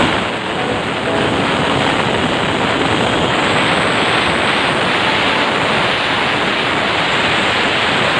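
Pressure cooker whistle venting steam: a loud, steady hiss of escaping steam, the sign that the cooker has come up to pressure.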